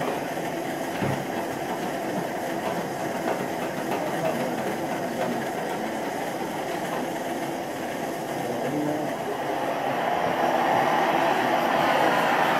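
Two handheld gas torches burning steadily into a small firebrick forge, heating a steel knife blade to temperature for hardening. A single knock comes about a second in, and the torch noise grows louder near the end.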